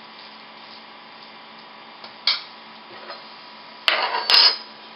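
Kitchen handling sounds at a metal mixing bowl: a single sharp knock a little over two seconds in, then a short loud clatter of two quick hits near four seconds, over a faint steady hum.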